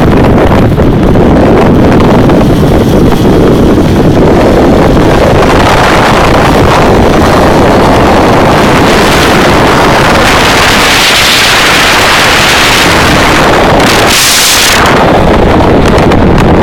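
Loud wind rushing and buffeting over the microphone at road speed, with motorcycle engine and road noise mixed in beneath.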